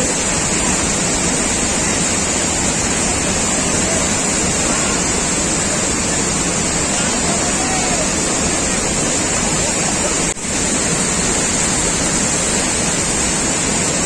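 Kaigal waterfall in full flood: a loud, steady rush of a large volume of water pouring over rock into a churning pool, with a momentary dip about ten seconds in.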